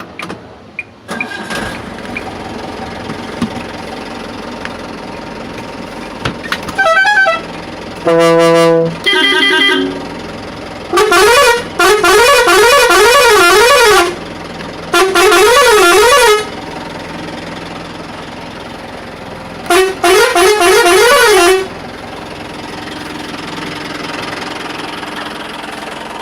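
Air horns on a Mahindra Tourister van sounding: a few short steady blasts, then three longer runs in which the pitch swings rapidly up and down. Underneath, the van's engine idles steadily in neutral.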